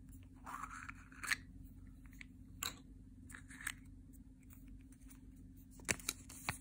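Small plastic toy capsule from a chocolate egg being pulled open and its paper contents taken out: a short scraping rustle, then about five light, sharp plastic clicks, two of them close together near the end.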